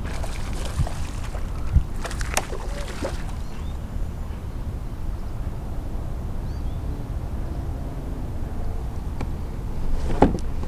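Water splashing and sloshing for the first few seconds, with one sharp crack, as a bass hooked on a spinnerbait is brought to the boat. A steady low rumble lies under it.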